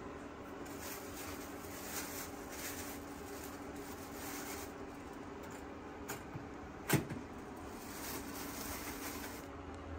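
Plastic bread bag rustling as slices are taken out, over a steady low appliance hum, with a sharp click about seven seconds in.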